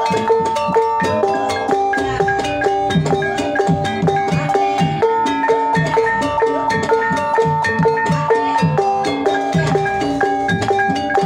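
Javanese gamelan ensemble playing a Banyumasan tayub gending: bronze pot gongs and metallophones struck with mallets, ringing in held tones over a steady rhythm of kendang drum strokes.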